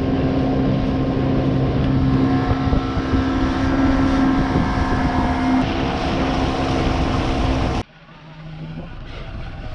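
Small outboard motor pushing an inflatable dinghy at speed, running steadily with a constant drone over rushing water and wind. It cuts off abruptly about eight seconds in, leaving a much quieter background.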